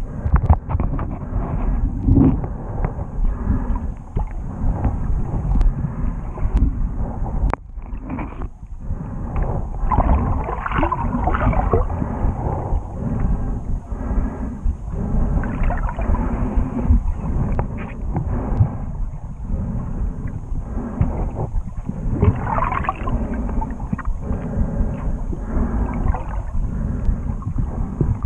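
Underwater water noise heard through a camera's waterproof housing: a muffled, uneven rumble and gurgle of water moving past the camera as it is swept along.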